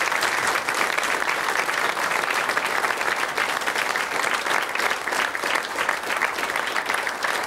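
Studio audience clapping: steady applause from a few dozen people.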